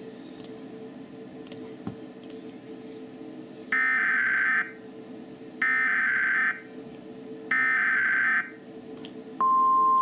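Emergency Alert System SAME header from an EAS encoder: three bursts of data tones, each lasting about a second, with about a second between them. Near the end a steady 1050 Hz weather-radio attention tone starts, put in where the relay did not want it.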